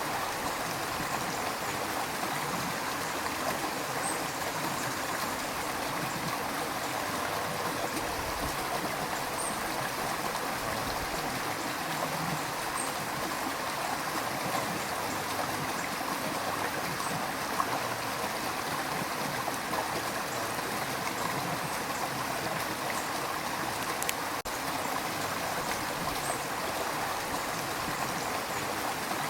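River water rushing and gurgling over rocks in a steady, even flow, with faint scattered high ticks of splashing droplets.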